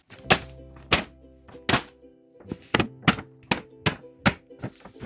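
Music with held bass and synth notes and a series of sharp, bright percussive hits at uneven spacing.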